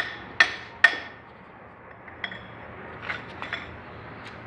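Metal striking metal: three sharp, evenly spaced ringing taps in the first second, then a few lighter metallic clinks, as tools work on engine parts.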